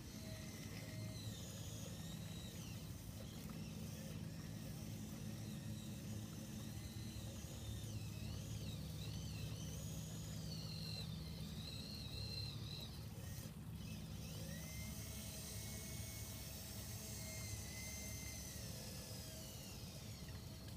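Small electric motors of a radio-controlled crawler crane whining over a low hum, their pitch rising and falling as the hoist and swing work the grab bucket. About two thirds of the way through, one motor speeds up and runs steadily for several seconds.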